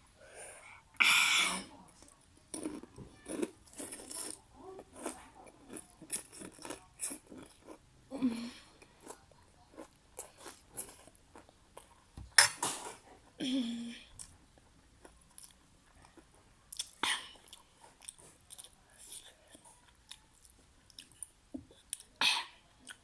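Close-up chewing and crunching of food, many small wet clicks with louder crunchy bites every few seconds.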